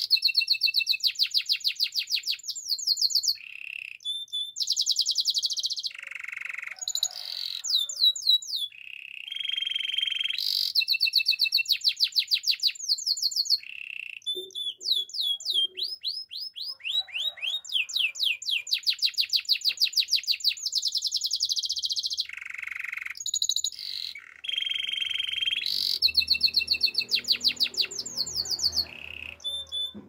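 A canary singing a long, continuous song of rapid trills and rolling runs of quick repeated notes, each run giving way to the next at a new pitch and speed every second or two. A faint low rumble sits under the song near the end.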